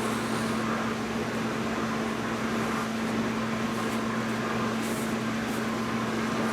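Steady low electrical-sounding hum with a flat background hiss. It is even and unbroken throughout, with no distinct sound events.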